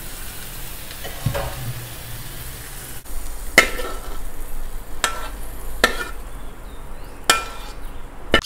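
Metal spatula scraping and clanking against a steel wok while stir-fried beef and vegetables are scooped out, over a faint sizzle. About five sharp, ringing clanks come in the second half.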